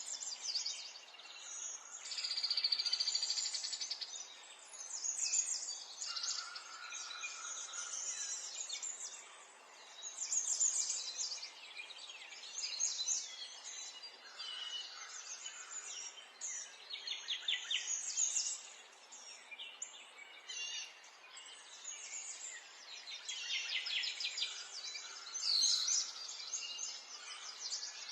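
Several small songbirds chirping and trilling at once, overlapping calls and songs with short rapid trills.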